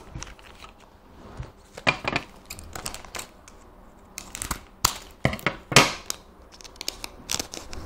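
Foil trading-card pack wrapper crinkling and tearing as it is handled and ripped open: a run of irregular sharp crackles, the loudest a little before the end.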